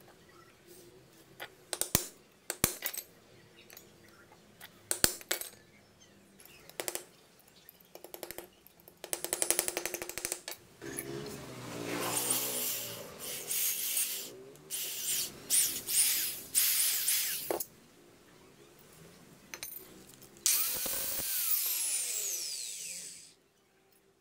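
A cordless drill boring through a metal hacksaw part in several short bursts, followed near the end by a longer run that winds down as the trigger is released. Before it come sharp metal clicks and knocks on a wooden block, and a fast ticking rattle.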